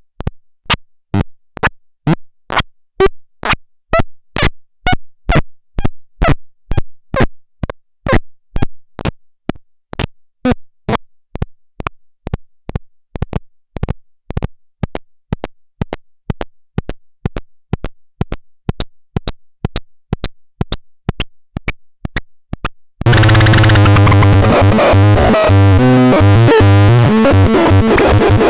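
Electronic sound generator: a steady train of sharp clicks, about two a second, then about five seconds from the end an abrupt switch to a loud, dense electronic drone of many shifting tones over a strong low hum.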